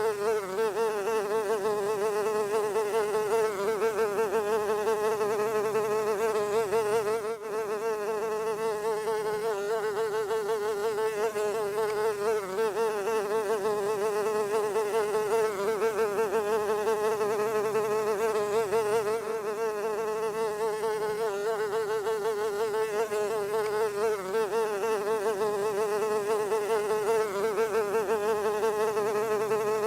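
A fly buzzing in flight: one continuous drone whose pitch wavers slightly, with a brief dip about seven seconds in.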